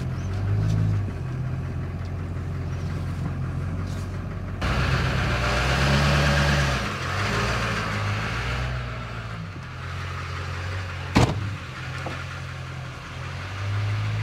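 The LB7 6.6-litre Duramax V8 turbodiesel of a 2003 Chevy Silverado 2500HD runs at low speed while the truck is pulled slowly forward, its note shifting a little. A louder stretch of rushing noise comes about five seconds in, and a single sharp knock about eleven seconds in.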